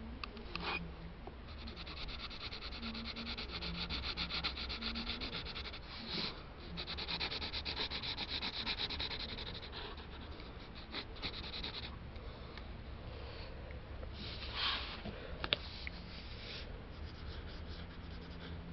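Graphite pencil scratching on paper in fast, dense back-and-forth strokes. These run for about ten seconds, then ease into a few separate short strokes near the end.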